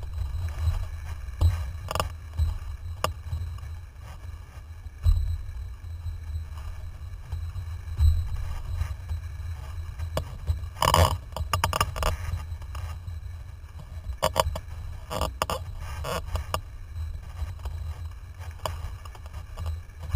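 Windsurf board sailing fast across choppy water, with a steady low wind rumble on the microphone. Irregular knocks and splashes from the hull slapping the chop and spray hitting the rig, including a quick cluster about halfway through and another run a few seconds later.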